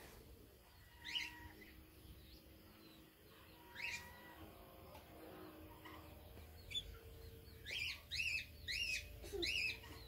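Small bird chirping: a couple of single high calls that slide downward, then from about eight seconds in a run of repeated arched chirps, about two a second.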